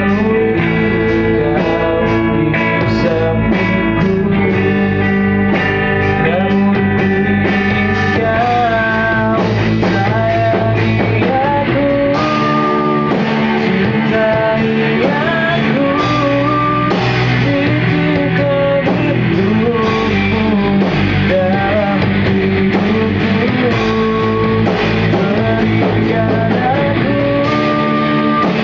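Live band playing a rock song in rehearsal: guitar with a steady beat, and a gliding sung or lead melody coming in about eight seconds in.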